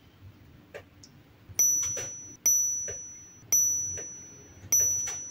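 A metal spoon tapping on a ceramic bowl, giving four bright ringing pings of the same high pitch about a second apart. Each ping fades out over most of a second. Faint small clicks of utensil handling are heard between them.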